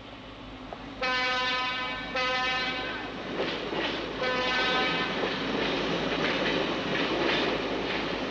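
Train horn sounding three times over the running noise of a train: three blasts of about a second each, then the steady rumble and clatter of the railway cars.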